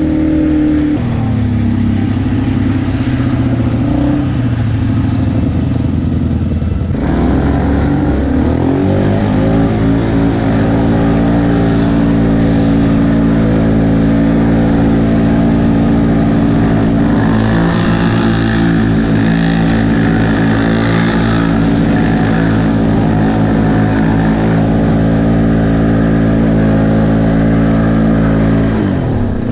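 Can-Am Outlander 400 XT ATV's single-cylinder engine running under throttle. The pitch wavers at first and drops sharply about seven seconds in, then climbs and holds steady for about twenty seconds before falling away near the end.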